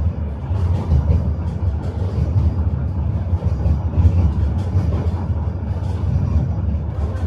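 Inside a tram car in motion: the steady low rumble of wheels on rails and the running gear, with light irregular clicks of the wheels over track joints.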